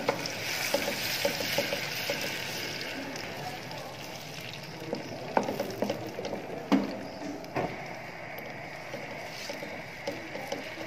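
Blended onion, garlic, ginger and green chilli paste sizzling in hot oil in a nonstick wok as it is stirred with a wooden spatula, with a few sharp knocks of the spatula on the pan around the middle.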